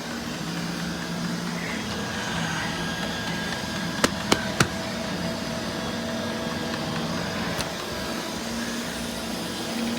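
Roomba robot vacuum running: a steady motor and brush hum, with three sharp clicks close together about four seconds in.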